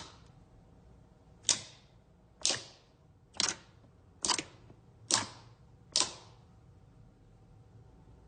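Slime being handled, making six sharp pops about one a second, each with a brief crackly tail.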